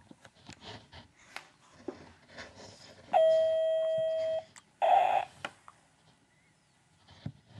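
An electronic beep: one steady tone held for over a second, starting and stopping abruptly. Half a second later comes a short, loud, rougher sound, with faint clicks and rustling around both.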